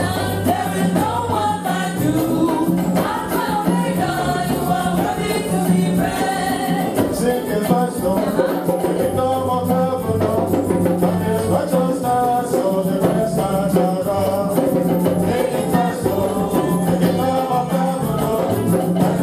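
Congregational gospel singing with a group of voices, backed by a steady bass line and shaken or jingling percussion.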